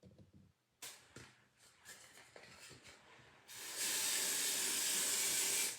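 A few light clicks and knocks from handling, then an aerosol spray can sprays in one steady hiss lasting about two seconds that cuts off sharply near the end. It is a wig or hair spray applied during a wig install.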